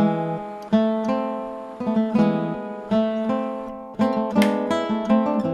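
Background music on acoustic guitar: chords plucked or strummed one after another, each ringing and fading away, with a brighter strum about four seconds in.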